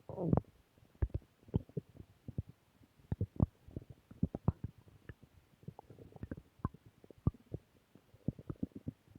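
Human stomach growling: an irregular string of short gurgles and pops, with a longer gurgle right at the start.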